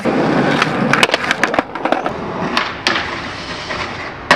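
Skateboard on concrete: wheels rolling and the board clattering, with a run of sharp clacks from the deck and trucks. A steadier scrape follows as the trucks grind a concrete ledge, then one hard clack near the end.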